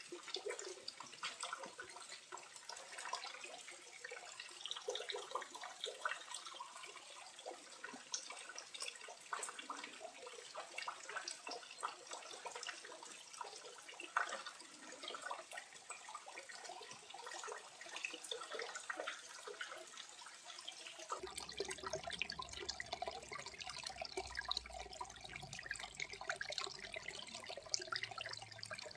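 Small waterfall running with a low flow, water splashing and trickling over rock in a steady, soft babble. About two-thirds of the way through, a low rumble joins in underneath.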